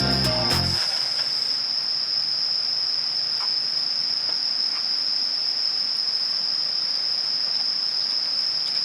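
Crickets chirring in a steady, high-pitched autumn evening chorus, with background music cutting off under a second in.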